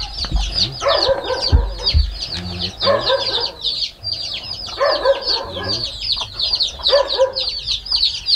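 Chicks peeping in a rapid, continuous high chorus, with an adult hen clucking in short calls about every two seconds.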